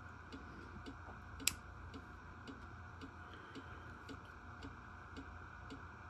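A clock ticking steadily, about three ticks a second, over a low room hum. About a second and a half in there is one sharp click from the button lock of a CRKT folding knife being worked.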